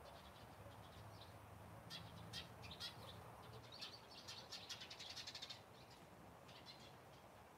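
Faint chirping of small birds: scattered sharp, high chips, with a quick run of them in the middle and a few more near the end.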